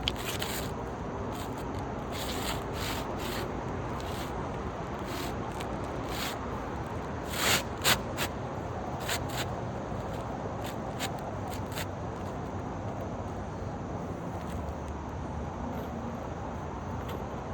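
Scattered scrapes and clicks from hands working asphalt roof shingles, over a steady outdoor rush. The loudest is a pair of knocks about seven and a half seconds in.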